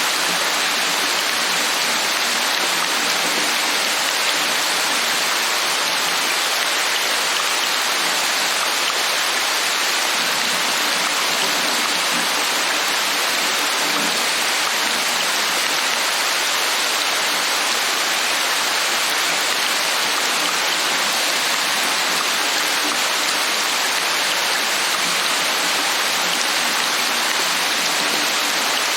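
Steady heavy rain falling, a dense even hiss of drops without pause.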